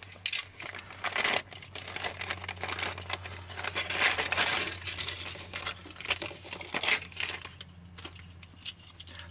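Thin plastic bag crinkling as it is opened and handled, with light clicks and clinks of plastic radiator pipe covers tipped out onto the bench; it quietens over the last couple of seconds.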